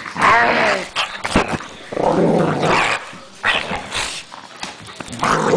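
Pit bull-type dog play-growling in about four loud, rough bursts while wrestling and biting at a blanket.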